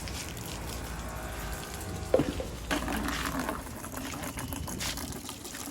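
Water running and splashing while a jeep is being washed, with a sharp knock about two seconds in.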